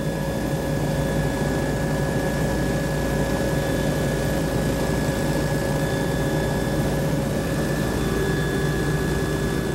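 Steady drone of a small survey aircraft's engine and propeller, heard from inside the cabin as a constant hum with several held tones over a rushing noise.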